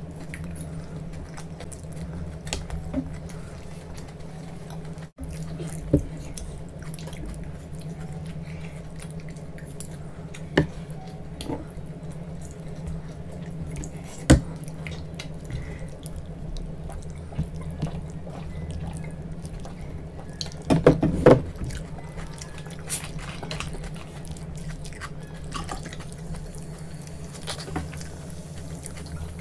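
Close-miked wet eating sounds: chewing and squishing of noodles and paneer manchurian in gravy, with scattered sharp clicks of spoon and glass and a cluster of clicks about two-thirds of the way through. A steady low hum runs underneath.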